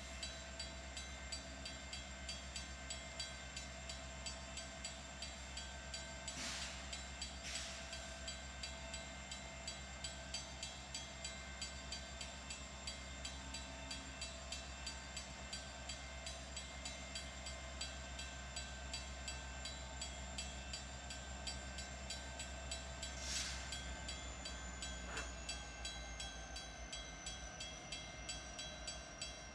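Freight train's diesel locomotives running at a distance, a steady low hum, while a grade-crossing bell rings on in an even, fast rhythm.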